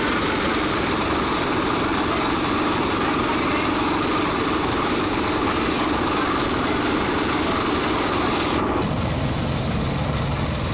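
Steady loud background noise with no clear rhythm or tone; its character changes abruptly about nine seconds in.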